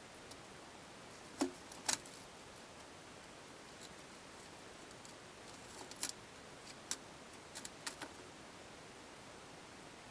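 A few sharp clicks and light knocks at irregular intervals, the loudest two close together about a second and a half in and others around six to eight seconds in, over a steady hiss: small parts or tools being handled during bike rack assembly.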